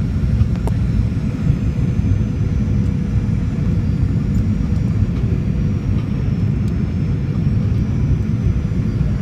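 Steady cabin noise inside a Boeing 737 airliner on approach: a low, even rumble from the jet engines and airflow, with a faint steady hum above it.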